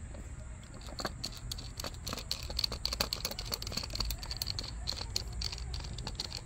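Rapid irregular light clicks and taps as a hand handles the ball-joint end of an adjustable rear camber arm on concrete. The clicks start about a second in and are thickest in the middle.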